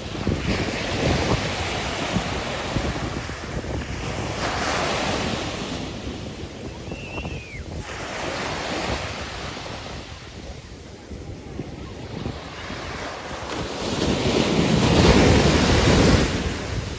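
Sea waves washing and wind buffeting the microphone, swelling and fading in surges every few seconds, loudest near the end.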